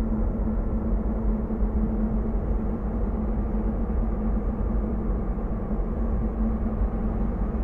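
Steady low rumbling drone with a constant hum, even in level throughout, with no distinct knocks or voices.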